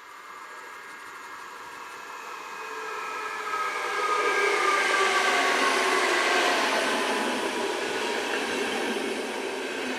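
A train approaching and passing: the rushing rail noise builds to a peak in the middle and eases off toward the end, while its whining tones fall in pitch as it goes by.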